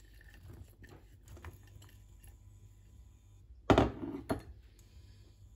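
Kitchenware clattering: one loud knock about three and a half seconds in and a lighter one half a second later, over a faint low hum.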